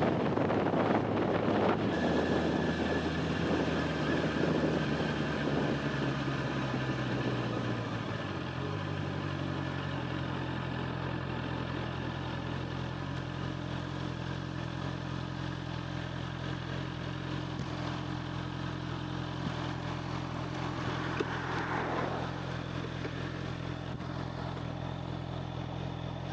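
Honda CBR650R's inline-four engine running with wind noise over the camera. The wind fades and the engine note steps down over the first eight seconds or so as the bike slows, then holds a steady, even note. The sound is muffled and tinny, picked up by the camera's built-in mic.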